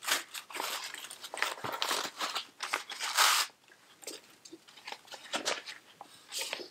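Crinkling and rustling of a waxy-coated fabric hanging organizer and its drawstring bag as the folded organizer is pulled out and opened up, in a run of irregular scrunches. The loudest and longest comes about three seconds in.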